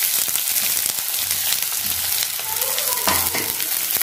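Chopped red onions sizzling in hot mustard oil with fried garlic in a kadai: a steady hiss with fine crackles. There is a single knock about three seconds in.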